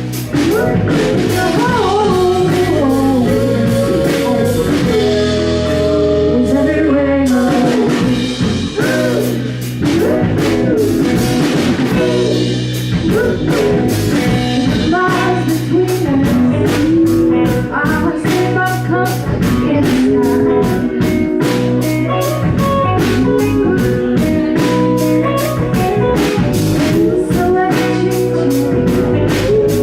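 Live band playing a blues-rock song: singing over electric guitar, bass and a drum kit keeping a steady beat.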